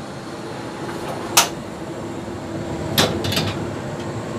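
A metal wok is set onto a gas stove's grate and the burner is lit. There is a sharp knock about a second and a half in, then a short cluster of clicks around three seconds, over a steady hum.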